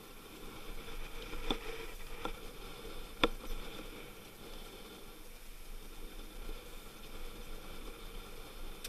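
Wind and rushing sea water around a sailing yacht in rough, choppy water, a steady hiss, with a few sharp knocks; the loudest is about three seconds in.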